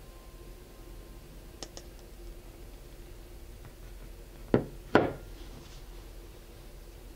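Two sharp knocks about half a second apart, a little past the middle, the second with a short ring, from baking utensils being handled: a glass cup, a fine mesh sieve and a glass mixing bowl. A couple of faint light clicks come before them.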